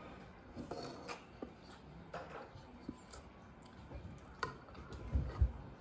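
Scattered soft clicks and taps of a spoon against a bowl during a meal, with a few low thumps near the end.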